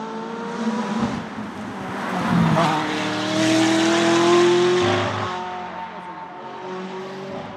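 McLaren 650S GT3 race car's 3.8-litre twin-turbo V8 accelerating up the road and passing close by. The engine note climbs in pitch, is loudest about four seconds in, then fades as the car goes away.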